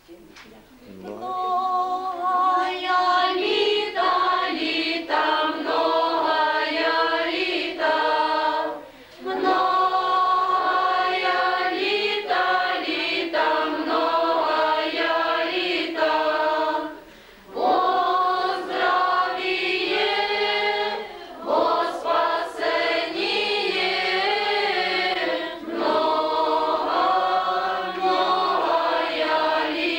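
A group of girls singing a Christmas carol together without accompaniment. They sing phrase by phrase, with short breaks between the phrases.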